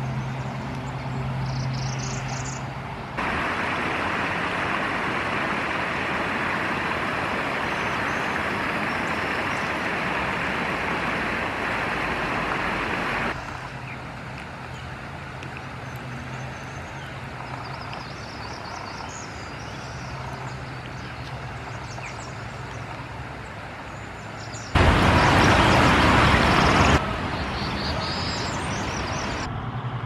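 Steady outdoor background noise that changes level abruptly several times, loudest for about two seconds near the end. Faint, high bird calls come through it now and then.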